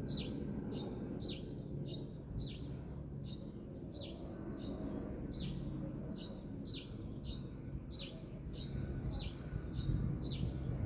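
A bird chirping over and over: short high notes that drop in pitch, about two a second, over a steady low rumble of background noise.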